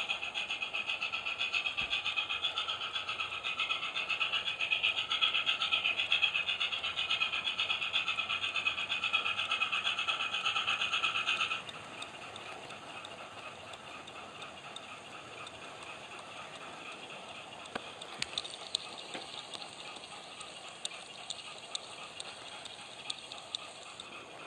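Howes DCC sound chip in a Bachmann model Robinson O4 steam locomotive playing rapid rhythmic exhaust chuffs through its small speaker. The chuffs cut off abruptly about halfway through, and the model runs on with a faint hiss and scattered light clicks.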